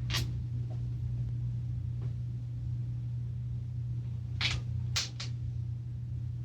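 A few light clicks of small parts being handled during reassembly of a small trimmer engine: one at the start and three in quick succession a little past the middle, over a steady low hum.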